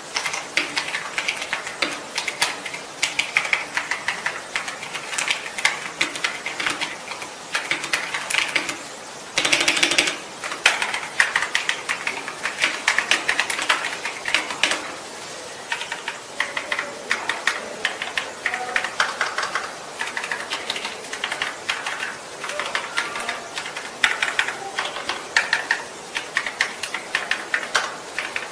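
Typing on an Epomaker TH96 mechanical keyboard: a continuous, uneven stream of quick keystroke clicks, with a short, denser and louder patch about ten seconds in.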